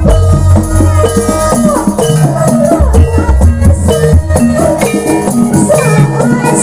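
Jaranan accompaniment music playing loud: drums and a shaker-like rattle over a heavy bass, stepped pitched notes and a wavering melody line.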